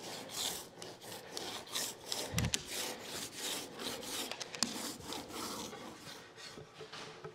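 Small foam roller rolled back and forth over wet wood glue on an American holly board, a soft rubbing swish with each stroke, about two strokes a second, spreading the glue to an even thin coat. The rubbing fades near the end.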